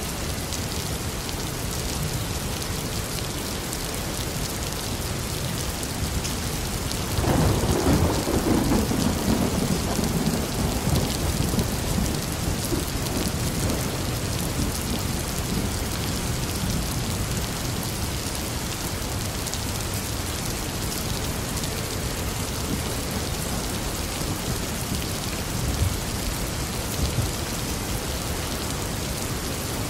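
Steady rain falling, with a thunderclap about seven seconds in that rolls away into a fading rumble over several seconds.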